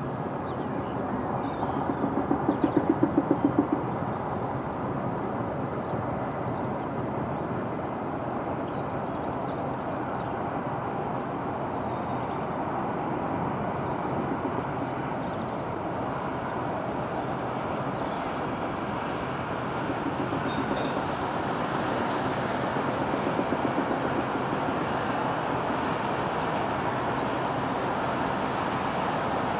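Steady road traffic noise, a continuous rumble of vehicle engines and tyres. A louder engine pulses rapidly for a couple of seconds about two seconds in, and a fainter one returns around twenty-three seconds.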